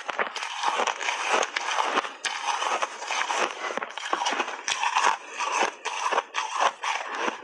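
Metal spoon scraping and digging through pink blended shaved ice in a plastic tub, a dense grainy crunching made of many quick strokes as a big spoonful is scooped up.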